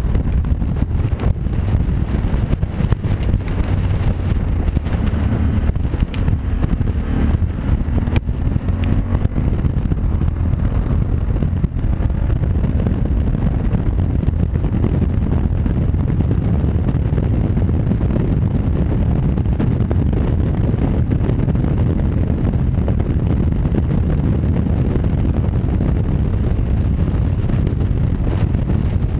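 Honda Varadero V-twin motorcycle engine running at road speed, under steady wind rush on the microphone.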